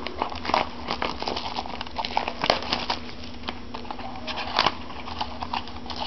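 Rustling and crinkling of a trading-card box and its wrappers being handled and opened, with scattered irregular clicks and taps. A steady low hum runs underneath.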